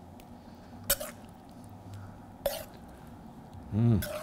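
Two sharp clinks about a second and a half apart: a serving utensil knocking against a stainless steel pan as curry is spooned out onto a plate.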